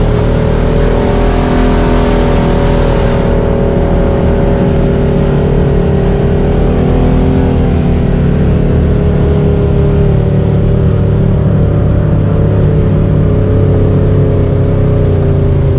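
Honda Talon X4 side-by-side's engine running steadily as it drives along a dirt trail, with tyre and trail noise underneath. A high hiss drops away sharply about three seconds in.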